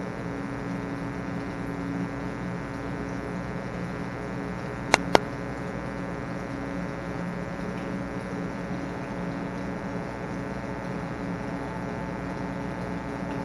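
Steady machine hum with several fixed tones, and two sharp clicks close together about five seconds in.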